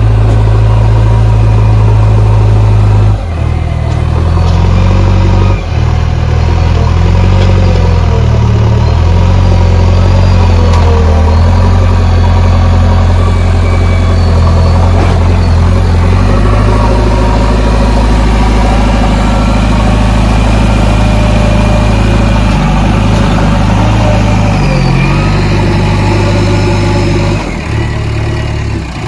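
JCB 3DX backhoe loader's diesel engine running loud and close, its revs rising and falling several times, easing off near the end.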